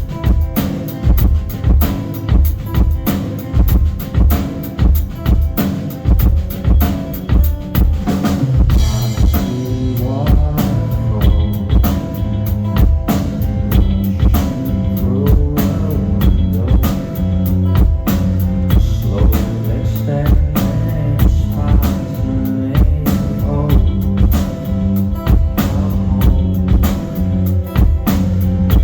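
Live rock band playing an instrumental intro. A drum kit drives a steady kick-and-snare beat with bass and electric guitar. About eight seconds in, a cymbal crash brings in a fuller, denser band sound.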